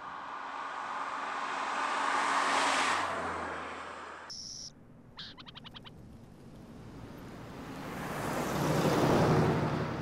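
Two cars passing by, each a rush of tyre and engine noise that swells and fades: the first peaks about two and a half seconds in, the second near the end. Between them come a brief high tone and a quick run of clicks.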